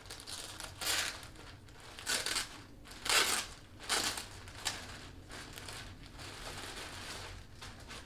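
Packaging crinkling and rustling as a hat is unwrapped: a handful of loud crinkles in the first five seconds, then softer steady rustling.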